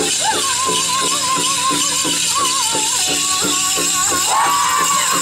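Powwow drum group playing a chicken dance song: a big drum struck steadily about three beats a second under a high-pitched lead voice holding a wavering line, with other voices coming in about four seconds in. A steady jingling sits above the drumming.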